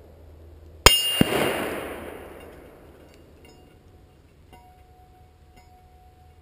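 A .308 bullet from an FN SPR A3G rifle strikes a steel plate target about a second in, a sharp crack and a high ringing clang, heard from beside the target. About a third of a second later the rifle's report arrives from 300 yards away and rolls off over a couple of seconds.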